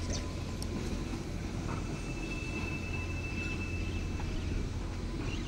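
Steady low rumble of a train standing at the platform, with a faint thin high tone that comes and goes.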